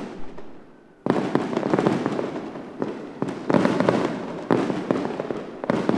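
Fireworks crackling and bursting in a dense, continuous barrage that starts about a second in and swells louder several times.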